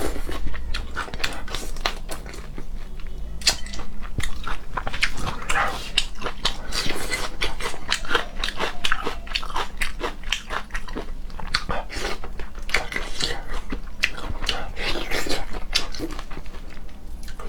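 Close-miked mouth sounds of someone eating shrimp: continuous wet chewing and lip-smacking, a dense uneven run of short clicks.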